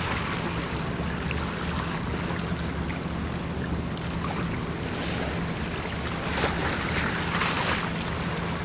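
Sea water lapping and washing against seaweed-covered rocks, with a few louder splashes about six to eight seconds in. A steady low hum runs beneath.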